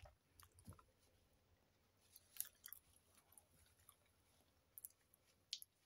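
Quiet chewing of hot cooked saba banana, mixed with scattered small clicks and rustles, the sharpest about two and a half seconds in and another near the end.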